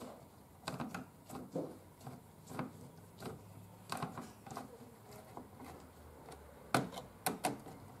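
Hand screwdriver turning screws into the metal back of a Bluetooth deadbolt lock, the screws being snugged only pinch-tight: light, irregular clicks and scrapes of the driver in the screw heads, with a few sharper knocks near the end.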